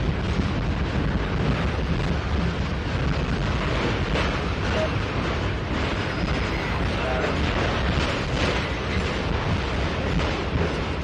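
Freight train of autorack cars rolling past: a steady rumble and clatter of steel wheels on the rails.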